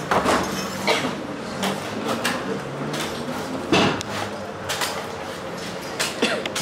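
Coconuts being chopped with a large knife: sharp chops at irregular spacing, about one a second, the loudest a little under four seconds in, over a steady background din.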